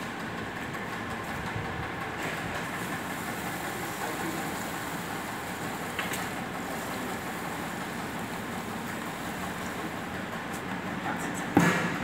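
Water poured from a plastic bucket into the sheet-metal drum of a pedal-operated washing machine, heard as a steady rushing noise, with a sharp knock near the end.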